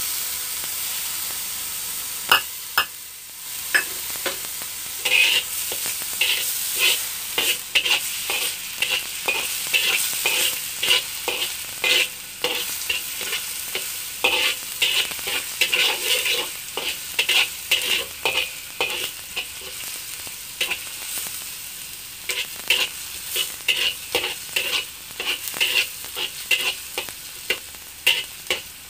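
Minced garlic sizzling in hot oil in a wok, with a steady hiss. From about five seconds in, a metal spatula scrapes and clacks against the wok in quick, irregular strokes as the garlic is stirred.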